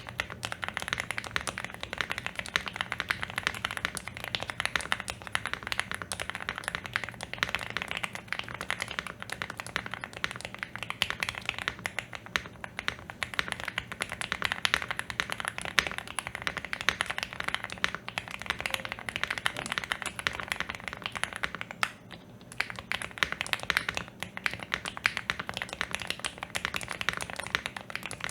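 Continuous fast typing on a Shortcut Studio Bridge75 PLUS mechanical keyboard with stock Gateron Snow Rabbit switches, stock stabilizers and stock keycaps: a dense stream of keystroke clicks with a brief lull about two-thirds of the way through.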